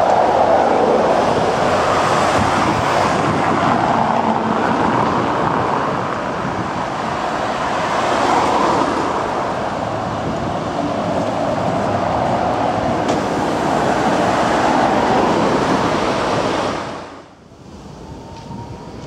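City buses passing close by: engine and tyre noise that swells and eases as one bus moves off and an articulated bus comes past. About seventeen seconds in it drops abruptly to much quieter street noise.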